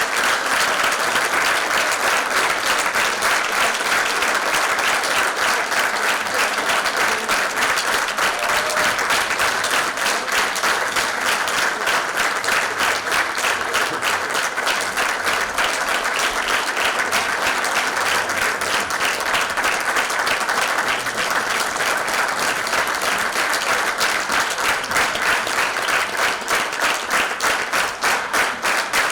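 Large audience applauding steadily. Toward the end the clapping falls into a regular beat.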